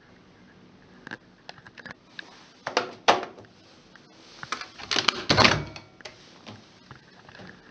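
Clicks and knocks of the Privileg 3020 front-loader's door being unlatched and handled, with the loudest knocks about three and five seconds in.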